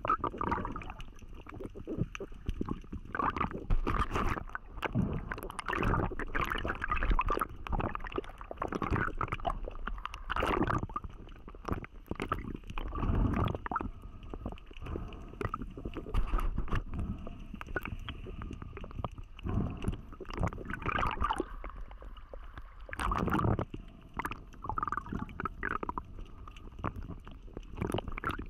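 Muffled underwater sound through a camera housing: irregular gurgling and water rushing, with scattered knocks and scrapes as a speared fish is gripped and handled on the spear shaft.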